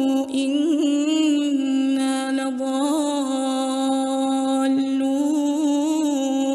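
A woman reciting the Quran in the melodic chanted style of tajwid, drawing one syllable out into a long held note with small ornamental turns in pitch.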